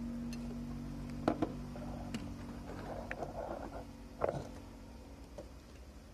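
A few light clicks and taps of an opened iPhone and small tools being handled on a wooden workbench, with a soft rustle in between. A low steady hum sits under the first part.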